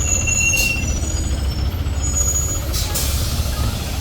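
Hyundai New Super Aerocity city bus's CNG engine running with a steady low rumble, with two short hisses of compressed air, about half a second in and near three seconds.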